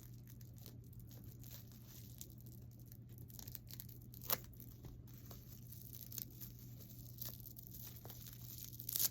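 A small wrapped package being torn open by hand: scattered tearing and crinkling of the wrapping, with a sharp snap about four seconds in and a louder rip near the end.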